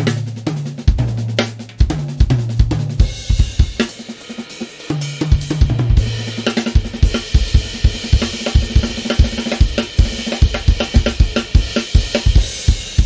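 Acoustic drum kit played in a driving groove with snare, bass drum and cymbals. From about seven seconds in, the strokes come faster and denser under a bright wash of cymbals.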